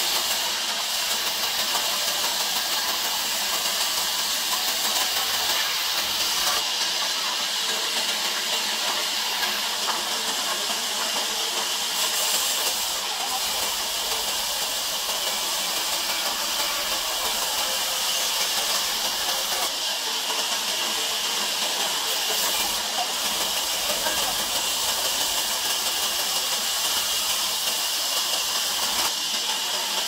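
Large sawmill band saw running and sawing through a log, a steady high hiss of the blade in the wood.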